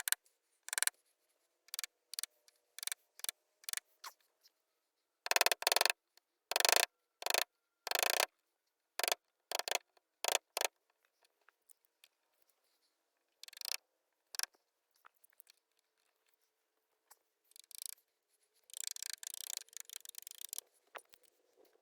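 A series of short scraping and rubbing strokes, about a dozen spaced out with pauses between them, and a denser run of scraping near the end.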